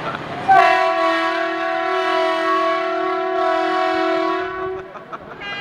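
Semi-truck air horn on a parading NASCAR hauler, one long steady blast of several tones at once, starting about half a second in and held for about four seconds before it cuts off.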